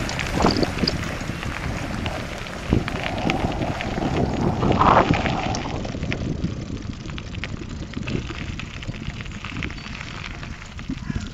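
Crunching and crackling of movement over a gravel road, mixed with wind rushing on the microphone; louder in the first half and easing off after about six seconds.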